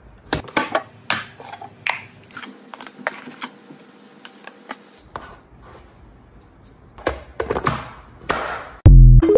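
Sharp plastic clicks and taps from push-button canister lids, with the soft scrape of a plastic scoop in laundry powder in between. Near the end there is a loud deep thump with a tone ringing on after it.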